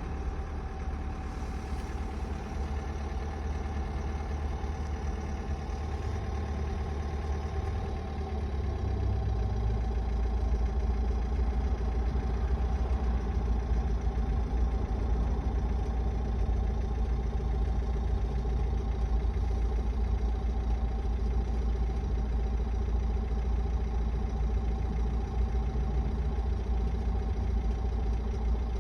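Renault R9M 1.6 dCi diesel engine idling steadily, with a knock the owner cannot place. The sound gets a little louder about nine seconds in.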